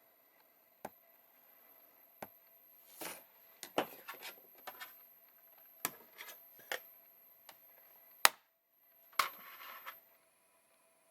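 Irregular light clicks, taps and short scrapes of small hard craft parts and tools being handled on a work surface, with one sharp click about eight seconds in.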